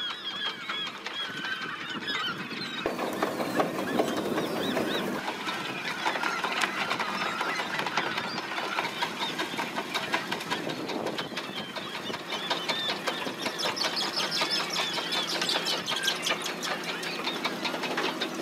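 Seagulls calling over a rapid clatter of clicks and slaps as fish are shaken out of a gill net and drop onto the boat. The calls are strongest in the first few seconds and again late on.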